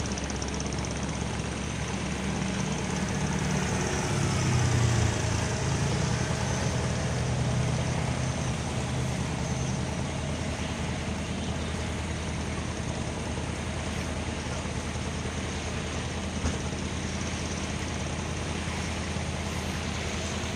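Engine of a Mahakam river taxi boat running steadily as the boat travels past on the river. Its low drone swells to its loudest about five seconds in, then eases off. A single short knock comes near the end.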